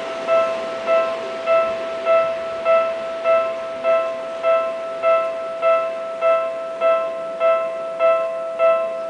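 A single electronic ding, the same pitch every time, repeating evenly at about five strikes every three seconds.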